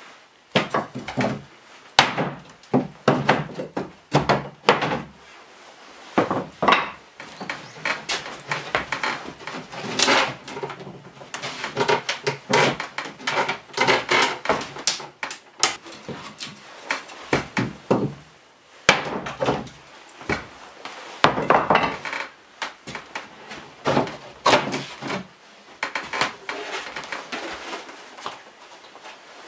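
Irregular wooden knocks, clunks and scraping from an old wooden kitchen cabinet being taken apart by hand, its boards and panels worked loose and lifted off. The sound is busiest in the middle.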